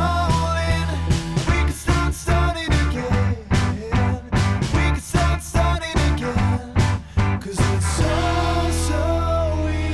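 Background rock music: a song with a steady bass, with choppy drum hits through the middle that give way to held notes near the end.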